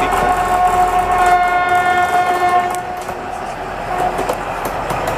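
Horn of a small DR class 102 diesel shunting locomotive, one long steady blast that cuts off about two and a half seconds in. Then the locomotive's engine and wheels on the rails are heard as it rolls past.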